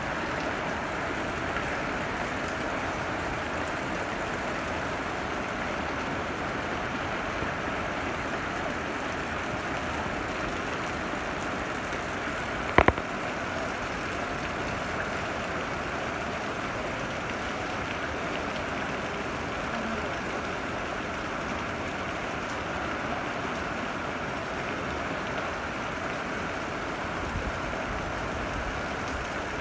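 Heavy downpour falling steadily on a paved street. One sharp knock comes about halfway through.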